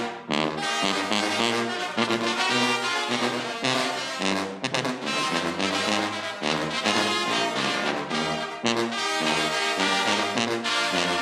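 The trombone section and tuba of a Mexican banda (sinaloense brass band) playing a lively passage together, with many quick note changes over a low bass line.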